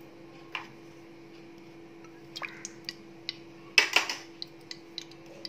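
Cooking oil poured into a hot, dry aluminium pressure cooker: scattered small ticks and drips, with one louder splash of oil on the hot metal about four seconds in. A steady low hum runs underneath.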